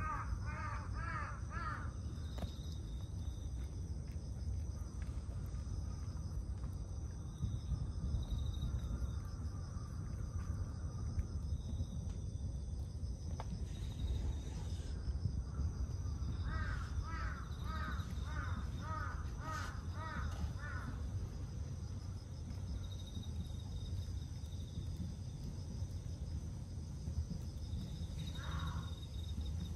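Crow cawing in quick runs of evenly spaced caws: a few at the start, about eight in a row midway, and one more near the end, over a steady low rumble.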